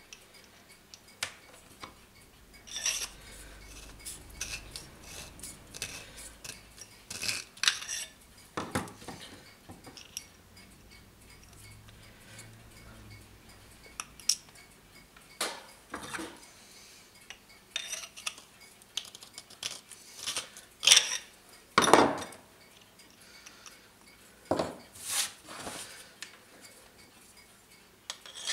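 Brass clock parts, a mainspring barrel and small bush blanks, clinking and knocking irregularly as they are handled and set down on a workbench, the loudest knocks about two-thirds of the way through.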